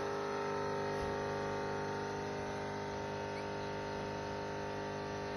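A steady hum made of several held tones, unchanging throughout.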